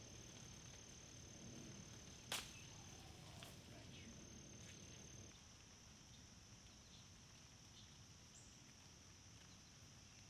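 Insects trilling steadily in a single high-pitched tone that pauses briefly around the middle, with one sharp click a little over two seconds in.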